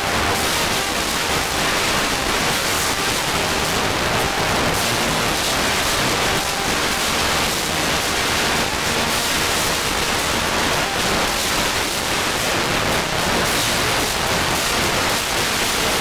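Loud, steady hiss like rain, with music faintly audible underneath it.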